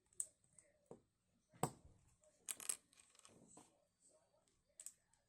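A few faint, scattered clicks and ticks of fingers handling a Rubik's cube and its stickers. The loudest comes about a second and a half in, and a quick pair follows a second later.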